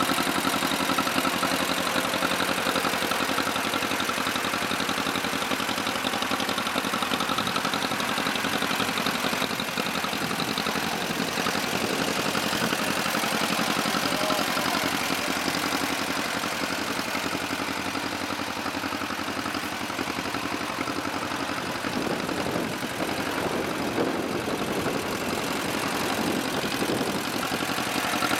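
1955 John Deere 40's two-cylinder engine idling steadily.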